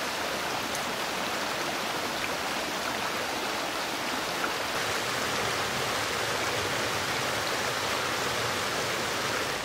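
Small forest creek running over rocks and fallen logs, a steady rushing of water.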